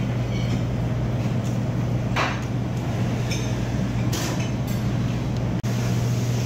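Steady low machine hum of a café interior, with a few brief clinks or knocks about two and four seconds in.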